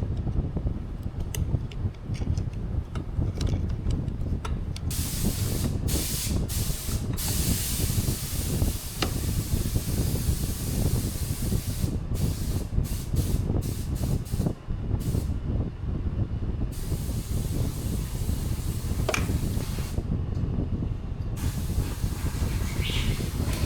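Spray hissing in on-and-off bursts for about twelve seconds, over a steady low rumble; the hiss stops and comes back near the end.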